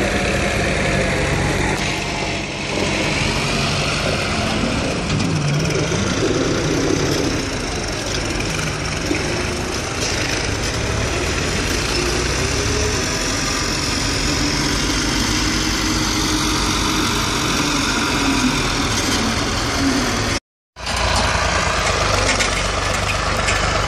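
Diesel farm tractor engine running steadily as it drags a land leveller through loose soil, its pitch rising and falling with the throttle. The sound drops out for a moment near the end.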